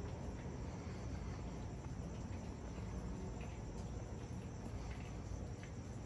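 Night insects chirping steadily in a high, even band over a steady low rumble of outdoor ambience, with a few faint ticks.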